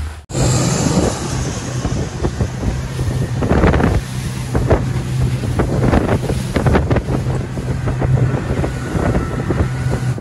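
A motorboat's outboard motor runs steadily under way, a constant low hum, with wind buffeting the microphone and water rushing past the hull.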